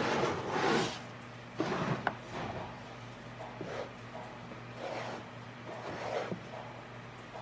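Wood scraping and sliding in short strokes, loudest in the first second, with a sharp knock about two seconds in, then three fainter scrapes, over a steady low hum.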